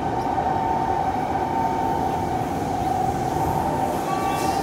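Kawasaki C151 electric train running through an underground tunnel, heard from inside the carriage: a steady rumble with a constant whine. About four seconds in, several higher whining tones join it.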